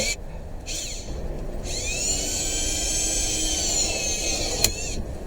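Power drill boring a pilot hole through pallet wood: the motor whines in two short bursts, then spins up and runs steadily for about three seconds. A single sharp click comes near the end, just before the drill stops.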